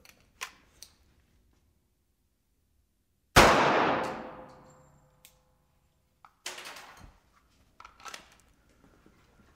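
A single .45 ACP handgun shot (230-grain ball round) about three and a half seconds in: one sharp crack with a ringing tail that fades over about two seconds.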